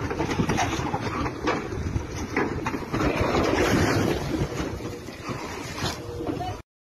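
Wind rushing over a phone's microphone outdoors, with scattered knocks and thuds as a trailer's overhanging load tips over and its packs spill onto the sand. The sound is loudest about three to four seconds in and cuts off suddenly near the end.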